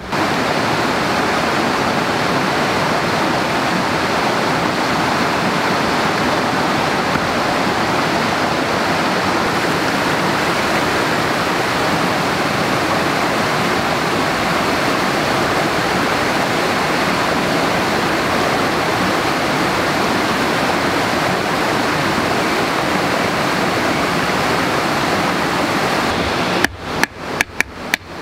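Steady rush of flowing water, like a stream or small waterfall. Near the end it gives way to a quick run of sharp wooden knocks, several a second, as a piece of wood is struck over and over.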